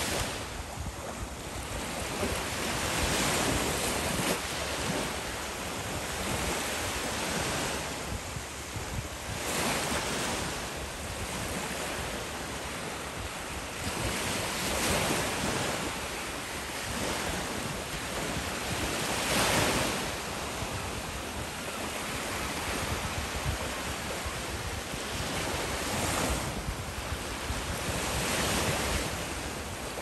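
Small waves of a calm sea washing in on the shore, the wash swelling and fading every few seconds, with wind rumbling on the microphone.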